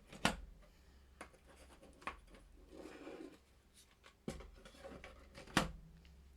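3D-printed plastic holders being handled and fitted into a board-game box insert: a few sharp plastic clacks, the two loudest just after the start and near the end, with light sliding and rubbing between them.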